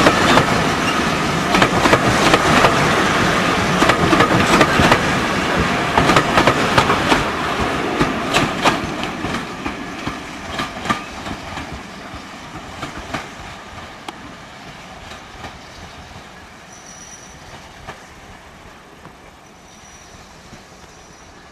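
Railway passenger coaches rolling past on a curve: wheels clicking over rail joints with a steady wheel squeal, the rumble fading steadily as the train draws away.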